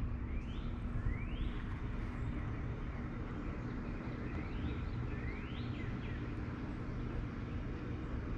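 Outdoor background: a steady low rumble with a faint hum, and a bird's short rising chirps every second or few.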